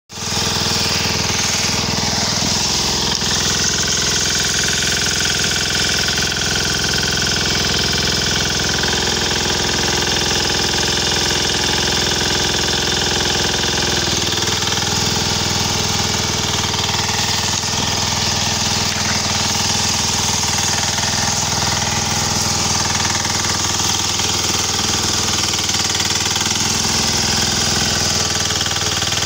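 Lombardini single-cylinder diesel engine of a walk-behind power weeder running steadily, its rotary tines in the soil. The engine's note changes slightly about halfway through.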